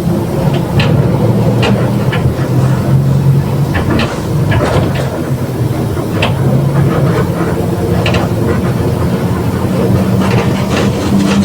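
Mercedes-Benz OF 1721 BlueTec 5 bus with Marcopolo Torino body under way: the diesel engine runs with a droning growl from the rear differential, while the body panels and fittings keep up frequent short rattles and clatters.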